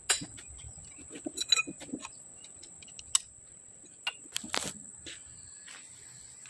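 Metal tools and steel parts clinking and knocking on a lathe set-up as a wrench works at the chuck: a few light taps, a cluster of ringing clinks around two seconds in, a sharp click near three seconds and a louder knock about four and a half seconds in. A thin, steady high-pitched whine runs underneath.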